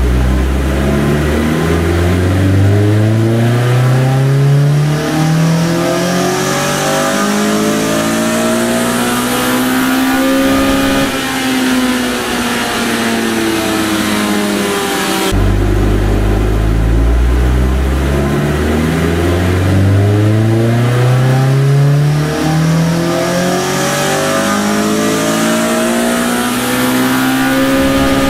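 Toyota 4A-GE big-port 1.6-litre twin-cam four-cylinder making two full-throttle dyno pulls. Each time the engine pitch climbs steadily through the rev range for about ten seconds, then falls away as it is backed off; the second pull starts about halfway through.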